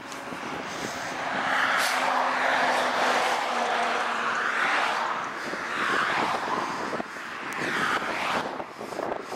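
Wind buffeting the microphone of a camera carried on a moving bicycle, swelling and easing in gusts and loudest in the first half, with a faint steady hum under it for the first few seconds.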